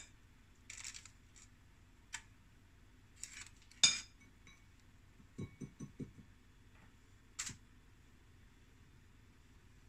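Scattered clinks of a metal spoon against a ceramic bowl and plates while wonton filling is scooped onto wrappers, the sharpest clink about four seconds in with a brief ring. A quick run of four or five soft knocks follows a second or two later.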